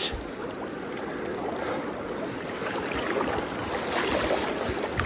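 Freestone river water rushing over a riffle close to the microphone, a steady, even wash.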